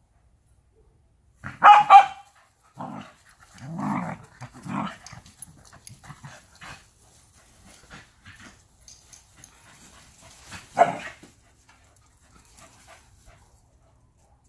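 Two dogs at play, an adult dog and a young schnoodle puppy, barking: two loud sharp barks about two seconds in, a few lower, rougher barks a second or two later, and one more loud bark about three-quarters of the way through, with faint scuffling between.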